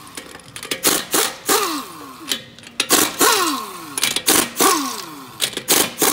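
Pneumatic impact wrench hammering lug nuts loose to take a wheel off, in a series of short trigger bursts, each followed by a falling whine as the air motor spins down.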